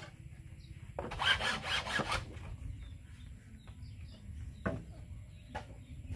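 Bamboo being rasped: a quick run of scraping, sawing-like strokes lasting about a second, starting about a second in, then two single light knocks later on.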